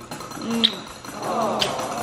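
A young boy's short playful voice sounds, with a sharp kiss smack about one and a half seconds in.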